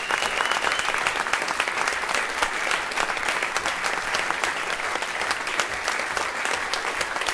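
Audience applauding steadily after a concert-band performance.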